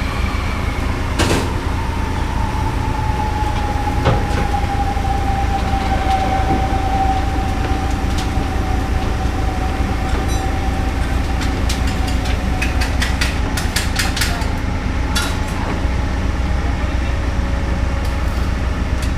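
Heavy diesel engine running steadily with a deep rumble. A long whine sinks slowly in pitch over most of the time, and a quick run of sharp clicks and knocks comes about two-thirds of the way through.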